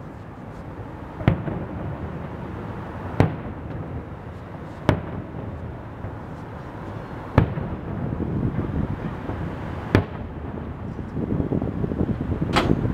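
Aerial firework shells bursting: about six sharp bangs, one every two to three seconds, over a continuous noise that grows louder in the last few seconds.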